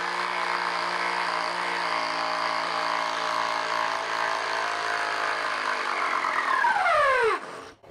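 DeWalt DCF809 Atomic 20V compact impact driver hammering a lag bolt into dense wood under full load, a steady buzzing hammer. Near the end the pitch slides down and it cuts off suddenly a little over seven seconds in as the run ends.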